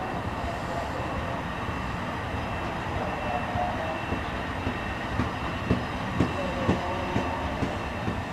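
Bi-level commuter coaches of an NJ Transit train rolling past: a steady rumble of wheels on rail. From about halfway through, the wheels click over the track about twice a second.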